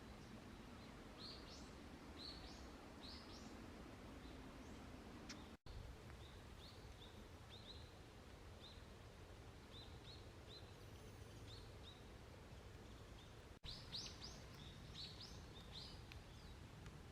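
Faint wild birds chirping in quick runs of short, high calls, busiest near the end, over a steady soft background hiss. The sound cuts out for an instant twice.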